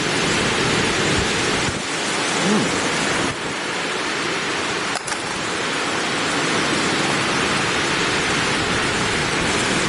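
Steady, loud rush of high wind and rain, with a brief click about five seconds in.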